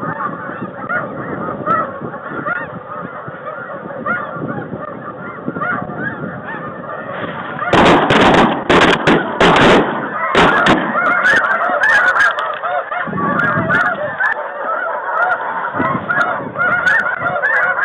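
A large flock of snow geese calling, a dense chorus of overlapping high honks. About eight seconds in comes a rapid volley of shotgun shots from several guns, close together over about three seconds, then a few fainter cracks as the honking goes on.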